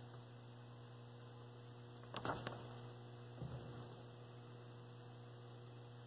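Steady low electrical mains hum, with two faint clicks a little over two seconds in.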